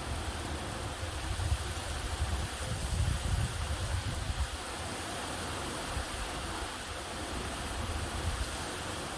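Typhoon wind blowing with a steady hiss, gusts buffeting the microphone with low rumbles that are strongest from about one to four and a half seconds in.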